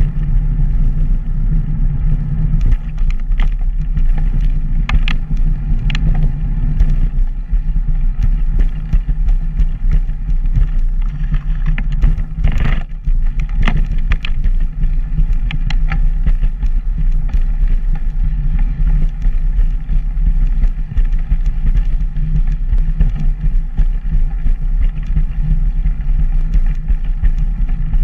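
Steady low rumble of wind buffeting the microphone and wheels rolling on a paved path while moving, with a few sharp knocks from bumps, the loudest about twelve seconds in.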